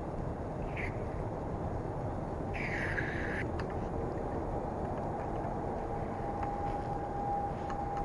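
Outdoor forest ambience: a steady low rumble, with a short bird call just under a second in and a longer, harsh bird call about three seconds in. A faint steady hum comes in during the second half.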